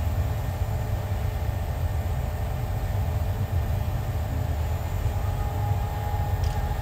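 Steady low rumble of commercial kitchen ventilation running, even and unbroken, with a faint thin steady tone joining about five seconds in.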